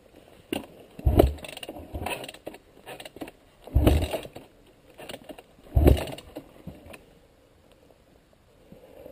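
Heavy thumps, knocks and rattles from a dirt bike bouncing over a rough trail and going down as its front wheel washes out. The loudest thumps come about 1, 4 and 6 seconds in, and it goes quiet once the bike is down.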